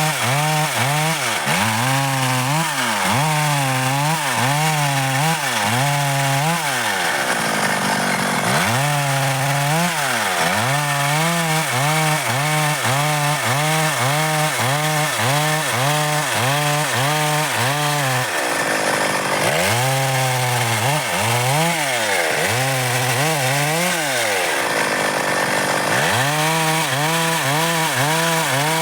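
Stihl MS 382 two-stroke chainsaw cutting dry wood. The engine pitch dips and climbs again over and over as the chain bites and frees, and the engine eases off briefly three times between cuts.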